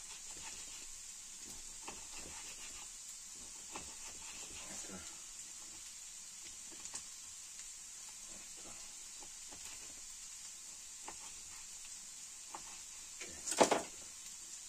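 Potatoes frying in a pan: a steady, quiet sizzle with scattered small crackles. One sharp knock comes near the end.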